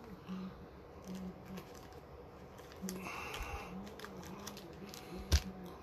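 Sealed foil trading card packs being picked up and handled: light rustling and small clicks, with one sharp tap about five seconds in.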